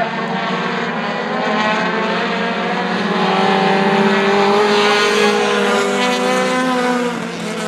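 A field of four-cylinder short-track race cars running laps together, several engines droning at once, growing a little louder around the middle as the pack comes closer.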